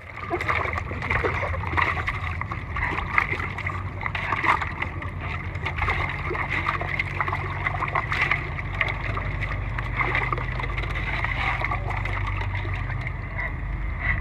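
Dog wading and swimming through a muddy creek, the water splashing and sloshing around it in a steady run of small splashes, over a low rumble.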